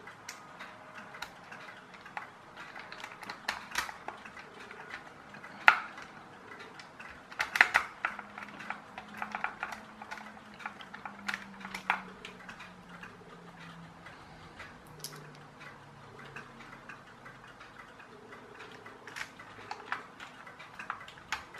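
Irregular small clicks and taps of a metal precision screwdriver and plastic toy-tank parts being handled, with the loudest knocks about six and eight seconds in.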